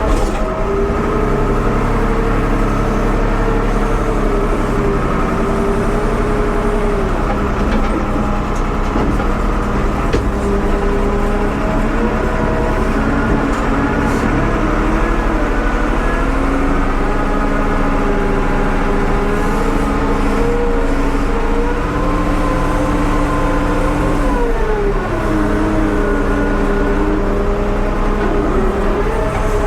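1975 Ford 550 backhoe's engine running steadily, its pitch sagging and picking back up a few times as the load changes.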